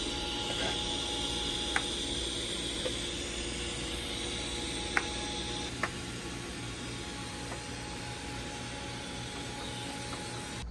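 TIG welding arc hissing steadily as a pipe joint is welded, with a few sharp ticks along the way.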